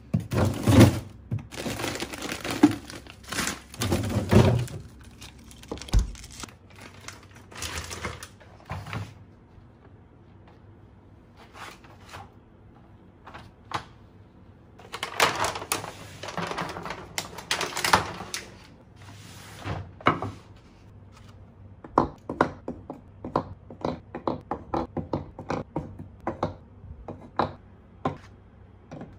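Kitchen handling sounds: a fridge-freezer door and its drawers opened with thunks and sliding rustle at the start, a cloth rustling as it is pulled off a tray of eggs, then a long run of light clicks and taps as eggs are lifted from a cardboard tray and set one by one into a wooden egg holder.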